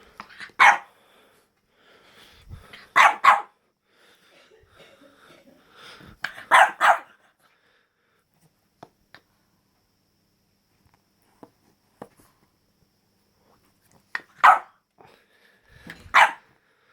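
French bulldog puppy barking in short bouts of single and double barks, with a quiet stretch of several seconds in the middle.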